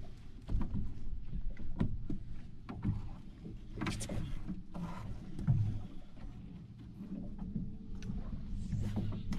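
Water lapping against a boat hull, with a low steady hum and scattered sharp clicks and knocks from fishing tackle being cast and reeled. A brief louder splash-like rush comes about four seconds in.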